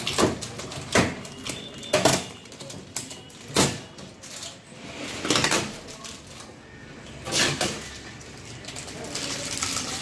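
Plastic clicks and knocks from the ice box tray in a Bosch refrigerator's freezer compartment being handled: four sharp knocks in the first four seconds, then two longer scraping rustles.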